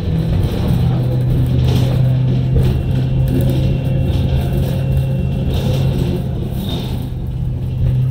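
Cabin noise of a 2021 New Flyer XE40 battery-electric bus under way: a steady low hum over road rumble and rattles, with no engine note.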